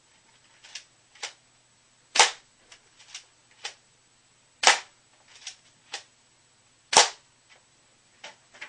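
Stinger S32P spring pump-action airsoft shotgun firing three single shots, about two and a half seconds apart, each a sharp crack. Between shots come pairs of lighter clicks as the pump is racked back and forward to cock it.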